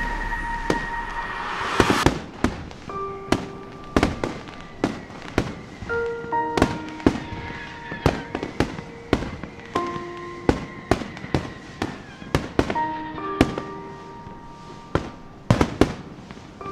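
Aerial fireworks shells bursting: a dense crackle for the first two seconds, then a run of sharp bangs at irregular spacing, about two a second. Soft music with long held notes plays underneath.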